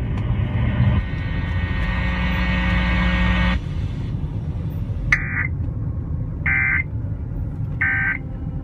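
Emergency Alert System end-of-message data bursts on FM radio: three short, identical digital warbling bursts about a second and a half apart, marking the end of the alert. Before them a steady buzz holds for a couple of seconds and cuts off suddenly. A low rumble of road noise runs underneath.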